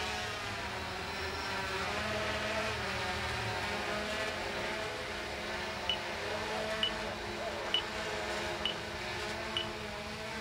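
Yuneec Typhoon H hexacopter hovering, its six rotors giving a steady buzz. From about six seconds in, short high beeps sound about once a second over it.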